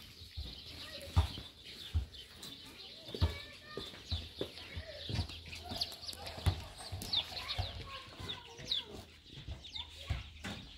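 Short bird chirps and calls, with scattered low thumps and clicks; the loudest thumps come about a second in and near two and three seconds.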